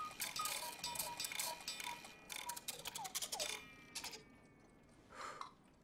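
Clockwork ticking and clicking with small high notes. After about three seconds it thins out with falling tones and stops, leaving one soft swell near the end.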